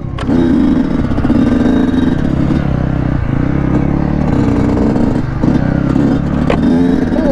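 Dirt bike engine running under throttle, the revs dipping and picking back up a few times, with a couple of sharp knocks.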